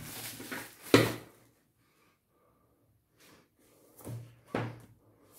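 Books and plastic wrapping handled on a wooden table: a rustle with a sharp knock about a second in, then two softer thuds near the end as books are set down.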